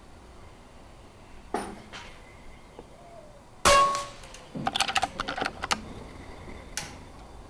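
A single air rifle shot, a sharp crack with a short metallic ring after it, followed by a quick run of mechanical clicks and clatter.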